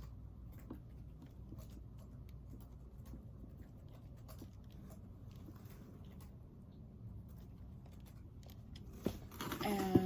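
Faint scattered clicks and light rustles of objects being handled, over a low room hum. There is a sharp click about nine seconds in, and a short louder sound with a pitch to it just before the end.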